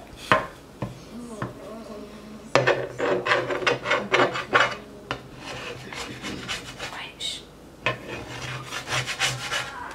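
Squeeze bottle of pancake batter rasping and sputtering as it is squeezed to pipe batter, in two spells of rapid crackling: from about two and a half seconds in to about five, and again near the end.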